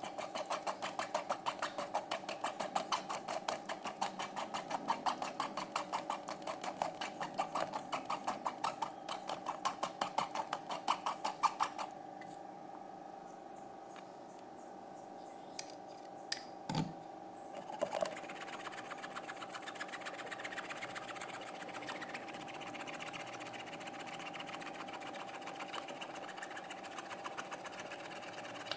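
Rapid rhythmic scraping of a spoon working blended fruit pulp through a mesh strainer. It stops about twelve seconds in, followed by a few light knocks and then a steady faint hum.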